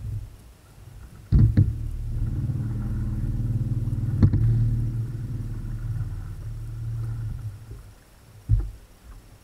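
Bow-mounted electric trolling motor running with a steady low hum from about a second in until shortly before the end. Sharp knocks on the boat's deck come as the hum starts, once midway, and near the end.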